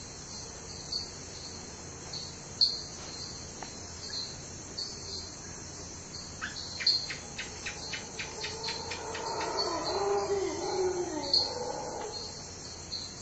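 Crickets chirping steadily in a night ambience. About halfway through a bird calls with a run of quickening notes, followed by lower wavering calls.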